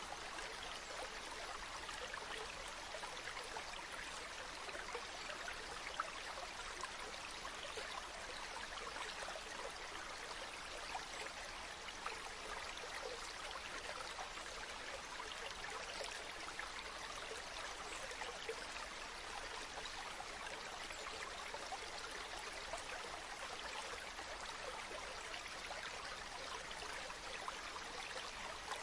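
Water flowing in a stream: a steady rush with many small splashes and trickles running through it.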